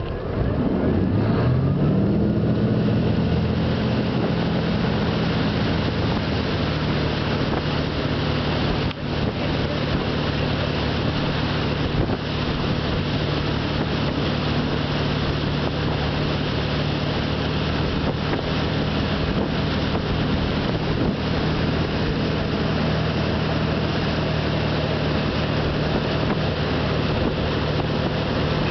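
Tow boat's engine revving up as it pulls a wakeboarder out of the water, then running steadily at towing speed, with a constant rushing hiss over it.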